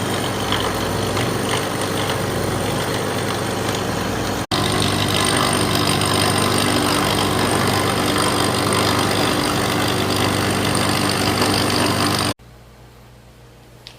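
Machine tool running steadily while machining aluminium motor mounts, a continuous mechanical hum with a thin high whine. It cuts abruptly twice, the second time, near the end, dropping to a much quieter steady hum.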